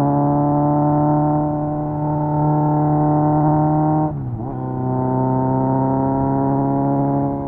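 Kawasaki Z900's 948cc four-cylinder engine running through an SC Project exhaust under way, its pitch climbing slowly with the revs. About four seconds in the note dips sharply and recovers, and near the end it falls quieter as the throttle eases.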